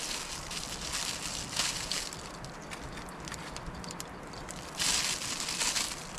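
Plastic bag crinkling in rustly bursts as it is handled, louder about a second in and near the end, over the crackle of a wood fire burning under a wok.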